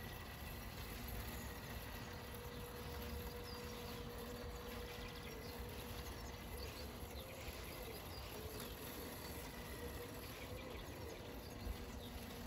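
Quiet outdoor ambience: a low rumble under a faint steady hum, with scattered faint high chirps.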